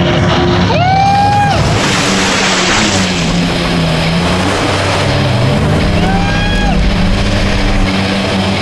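Jet ski engine running over choppy water, its pitch shifting as the craft bounces on the waves, with the rush of spray. Twice a short rising tone cuts in, about a second in and about six seconds in.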